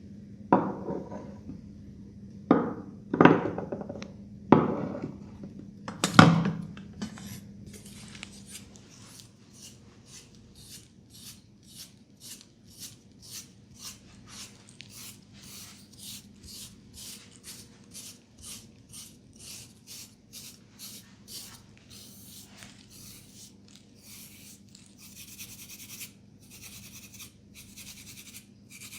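Hands working on a head during a massage: five dull thumps in the first six seconds, then rhythmic scratching and rubbing strokes through the hair, about two a second, turning into a steadier rustle near the end.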